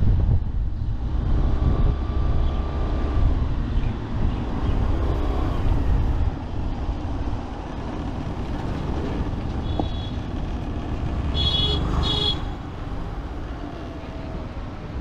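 Riding noise from a Yamaha Street Rally motorcycle: wind rushing over the action camera's microphone, with the engine running underneath. A vehicle horn beeps twice in quick succession about three-quarters of the way through.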